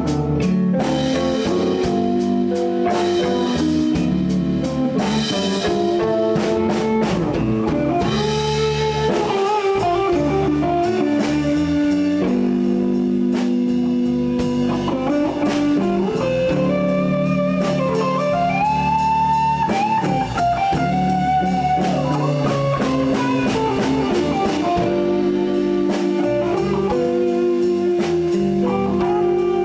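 Blues band playing an instrumental break: an electric guitar leads with bent, gliding notes over drums and bass.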